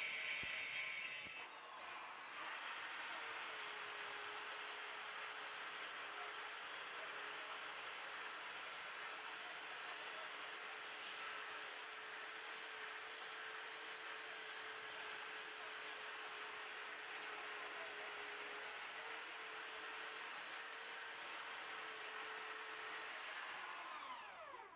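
A short noisy mechanical sound, then a small high-speed power tool motor spins up about two seconds in. It runs with a steady high whine for about twenty seconds and winds down near the end.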